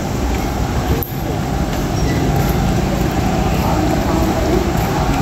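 Steady low rumble of city street noise: traffic and general activity, with a brief drop in level about a second in.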